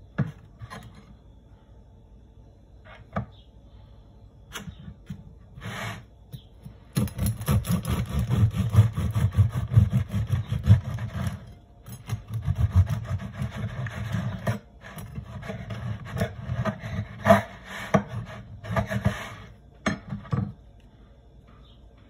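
Serrated bread knife sawing through a crusty sesame sourdough loaf on a wooden cutting board, in repeated rasping strokes. A few light knocks in the first seconds as a slice is set down, then sawing from about seven seconds in, with short breaks, until about twenty seconds.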